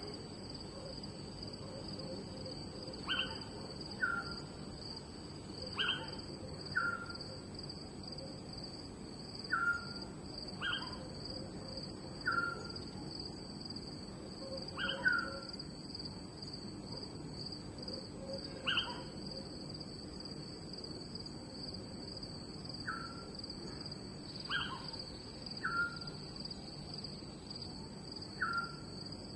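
Night ambience: crickets chirring in a steady high-pitched drone, with short calls from another animal every second or two, some dropping in pitch.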